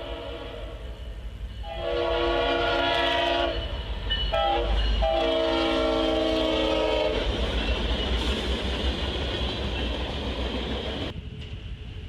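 Diesel locomotive air horn sounding a long blast, a short blast and a final long blast, the end of the standard grade-crossing signal. This is followed by the rumble and rattle of the train passing the crossing, which cuts off abruptly about eleven seconds in. It is heard through a trackside webcam's microphone.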